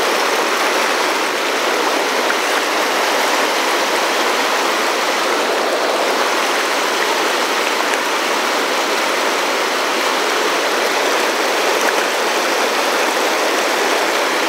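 Steady, loud rush of turbulent whitewater as a small, fast mountain river tumbles over and around boulders in pocket water.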